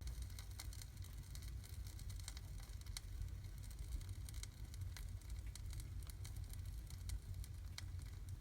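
Bangkirai hardwood burning in a fireplace, crackling with many sharp pops and snaps over a steady low rumble of the fire.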